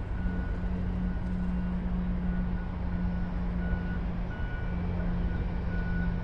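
A reversing alarm beeping about one and a half times a second, over a steady low engine hum and rumble from a heavy vehicle.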